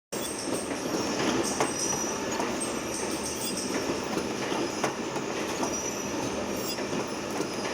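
Automatic powder press forming tungsten carbide saw tips, running steadily: a continuous machine clatter with irregular sharp clicks and short, thin high-pitched squeals.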